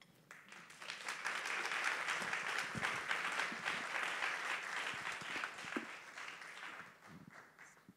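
Audience applauding: the clapping builds up over the first second, holds steady, and dies away over the last couple of seconds.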